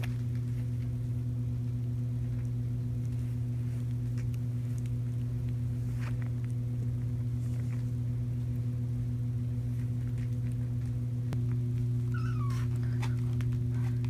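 A steady low hum, shifting slightly about eleven seconds in, with a kitten mewing faintly twice near the end.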